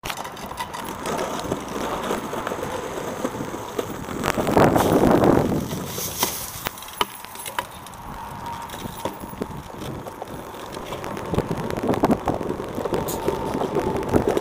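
Stunt scooter wheels rolling over rough asphalt, loudest for a second or so about four seconds in, with a few sharp clacks of the deck and wheels hitting the ground.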